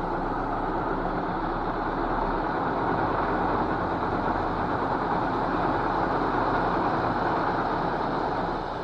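Tipper truck dumping a load of gravel: a steady rushing hiss of stones sliding off the raised bed, with the truck's diesel engine running underneath.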